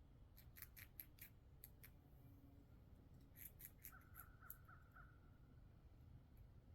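A squirrel's teeth scraping and cracking at a black walnut's very thick shell: faint, sharp gnawing clicks in two quick clusters. A brief faint pulsed call comes in about four seconds in.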